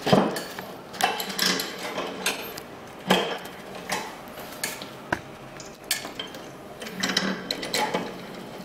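Manual single-punch tablet press being cranked by hand, its metal punches and cam clacking in a string of sharp clicks and clatters, about one every second, as it presses tablets.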